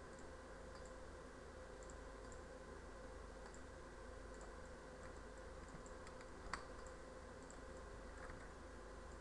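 Faint, scattered clicks of a computer mouse and keyboard, with one sharper click about six and a half seconds in, over a steady low electrical hum.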